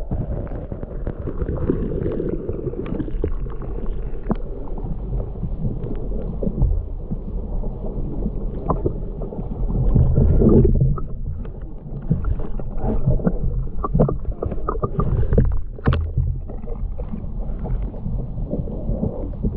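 Muffled underwater rumble and sloshing heard through a submerged GoPro camera, with many scattered small knocks and clicks from the camera and its housing being moved in the water, swelling louder about halfway through.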